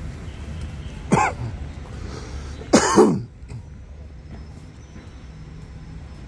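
A person coughing and clearing their throat close by: one short sharp cough about a second in, then a longer, louder one near three seconds, over a steady low street hum.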